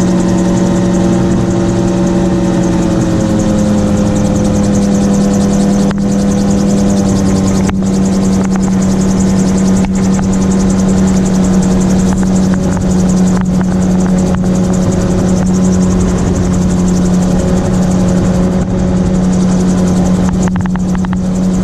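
MT-03 gyrocopter's engine and pusher propeller running steadily at climb power just after take-off, heard in the open cockpit. The drone shifts slightly in pitch about three seconds in.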